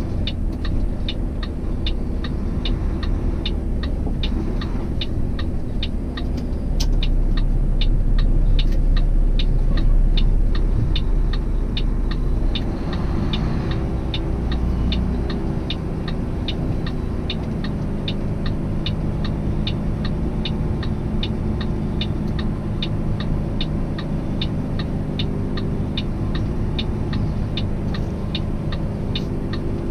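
Semi-truck's diesel engine running as heard inside the cab, getting louder about seven seconds in and easing off around twelve seconds. Over it, a turn-signal flasher clicks steadily about twice a second.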